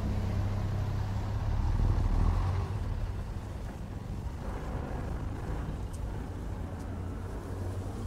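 Low, steady engine rumble of a motor vehicle, loudest about two seconds in and then easing off to a quieter background rumble.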